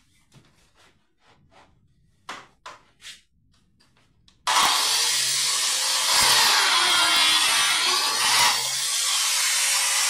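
Makita PJ7000 biscuit joiner switched on about four and a half seconds in, its motor running at speed as the spinning blade is plunged into a wooden board to cut a biscuit slot. Before it starts there are only faint taps of the tool being handled.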